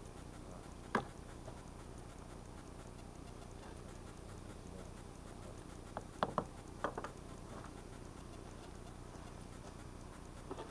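A few light metal clinks and taps from a spoon and forge tongs at a smithing bench: one about a second in, then a quick cluster of four or five around six to seven seconds, over a faint steady background.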